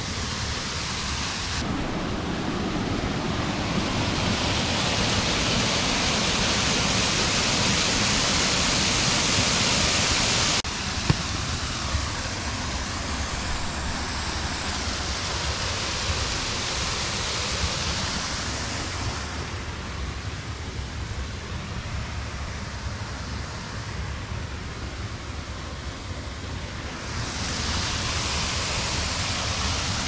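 Small waterfall rushing: a steady noise of falling water that jumps abruptly in level about two seconds in and again about ten seconds in, with a couple of brief knocks just after.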